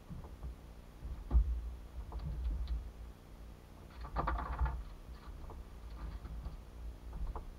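Scattered light knocks, taps and rustles from gear being handled on a small boat's deck, with a sharper knock about a second in and a short scraping rustle around four seconds in, over a low steady rumble.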